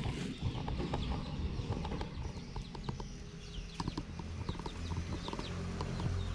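Irregular tapping and clicking of footsteps on a tiled path, with small bird chirps high above and a steady low rumble underneath.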